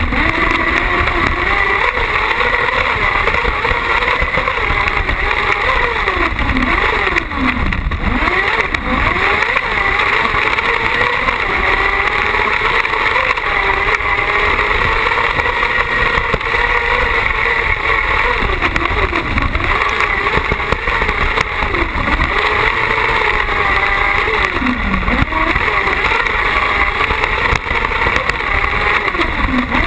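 Carcross buggy's engine running hard at racing speed, heard from on board, its pitch dropping and climbing back several times as the throttle comes off and goes on again through corners, over a steady rush of wind and track noise.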